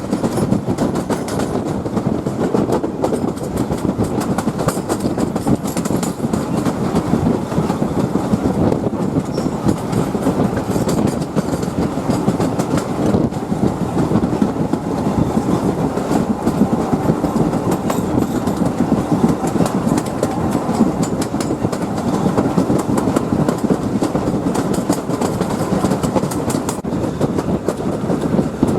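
Train running on the track: a steady, loud rumble and rattle of wheels on rail with a fast clatter of small clicks.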